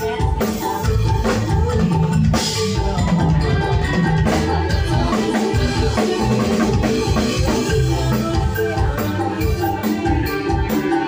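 Loud dance music with a drum beat and heavy bass, played through a large PA sound system with subwoofers.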